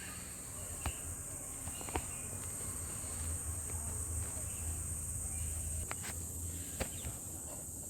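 A few sharp plastic clicks and taps as the clip tabs of a Commodore instrument cluster's clear plastic cover are pressed and worked loose, over a steady high chirring of crickets.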